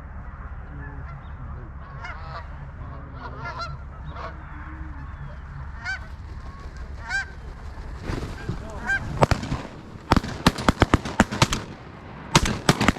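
Geese honking as a flock comes in over the decoys, then a rapid volley of shotgun blasts from several guns starting about nine seconds in, pausing for a moment and resuming near the end.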